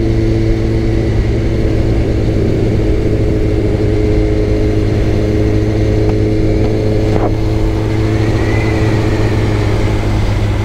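Suzuki sport bike's engine running steadily at an even cruising speed, heard from the rider's seat over road and wind noise.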